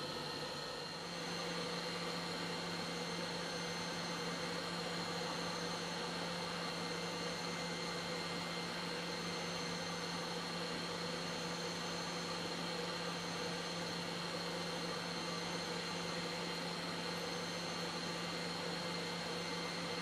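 Hot air rework station blowing at 350 °C and 20% airflow while heating a circuit-board chip to melt its solder: a steady hiss with a low hum that steps up slightly about a second in.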